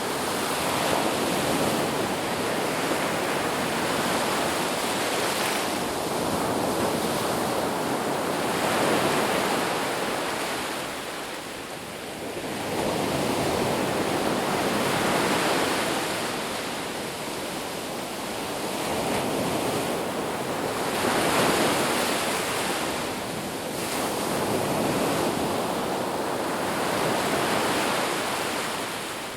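Sea waves: a continuous wash of surf that swells and eases every few seconds.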